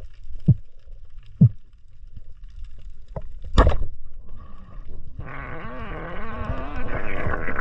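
Underwater sound at a diver's camera: a low rumble with a few sharp knocks, the loudest about three and a half seconds in. About five seconds in, a wavering drone with a whine sets in, its pitch bending up and down, and grows louder.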